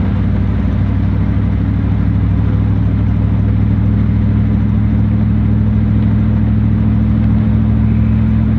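Old pickup truck's engine running, heard from inside the cab: a steady low hum with road noise.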